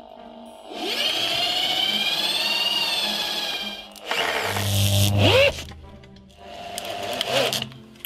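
Electric drill boring pilot holes and driving screws into wooden battens. It runs in a long steady whine of about three seconds, then two shorter runs, over background music.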